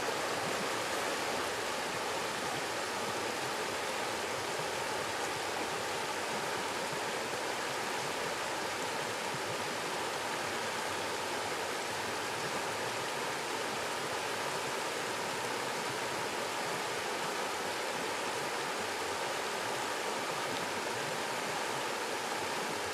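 A small creek's water rushing steadily.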